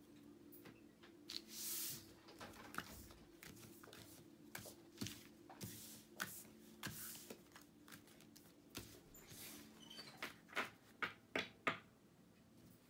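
Tarot cards being shuffled and handled: a run of soft slides and taps, with a longer swish just before two seconds in. A faint steady hum lies underneath.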